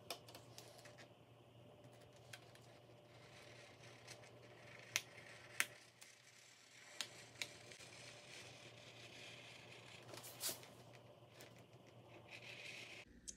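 Scissors gliding through a sheet of frosted vinyl window film: a faint, steady slicing hiss of the blades and rustling plastic, broken by a few sharp ticks.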